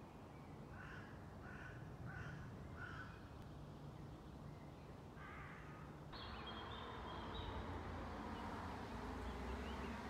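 A crow cawing four times in quick succession, then once more a couple of seconds later. About six seconds in, a fuller outdoor background comes in abruptly with small birds chirping high.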